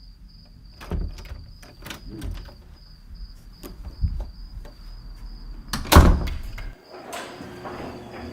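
A series of knocks and clatters, with one loud bang about six seconds in, over a steady high pulsing tone; music starts about a second later.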